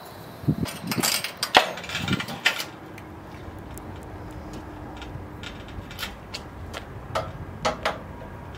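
Clicks and metallic knocks from a van's wheelchair lift platform and the wheelchair on it, a cluster in the first few seconds and a few more near the end, with a faint steady hum in between.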